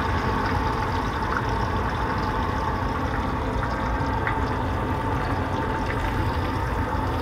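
Cusk (burbot) fillets sizzling in oil in a skillet. It is a steady frying hiss with a few faint pops.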